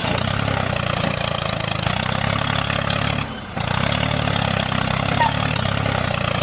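Small motor of a DIY mini tractor running steadily, with a brief drop-out about three seconds in.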